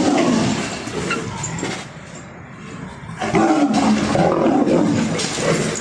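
A lion and tigers fighting, growling and roaring in two loud bouts with a short lull in the middle.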